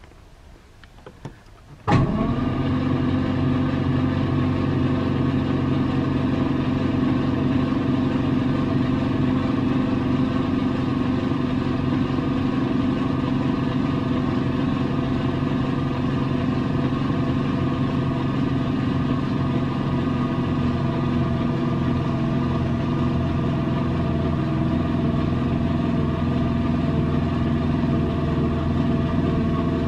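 Starter motor cranking a 1937 Talbot 3-litre's six-cylinder engine with the spark plugs out, starting suddenly about two seconds in and then spinning steadily and evenly. It is a slow turnover to build oil pressure.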